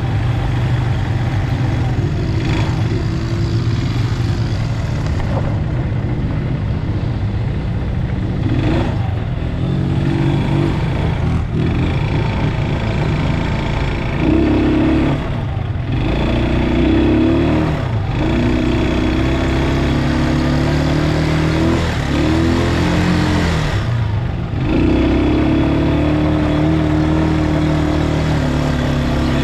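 Quad bike engines running and revving, the pitch rising and falling again and again as the throttle is opened and closed.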